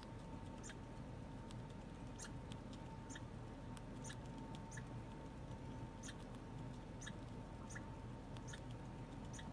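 Red squirrel nibbling and chewing food held in its paws: sharp, irregular little clicks of its teeth, about two a second, over a faint steady hum.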